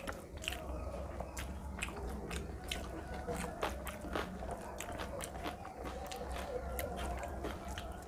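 Close-up eating sounds: wet chewing and mouth clicks, with fingers mashing rice and curry against a metal plate. Irregular short smacks and clicks come throughout, over a steady low hum.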